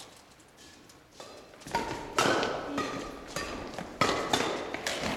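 Badminton rackets striking a shuttlecock in a fast rally, sharp hits about every half second, starting about a second in, echoing in a large gym hall.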